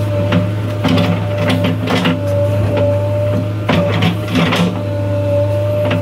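JCB 3DX backhoe loader's 49 hp diesel engine running steadily under digging load with a steady hydraulic whine, as the backhoe bucket works a trench. Irregular clanks and scrapes from the bucket and arm break in every second or so.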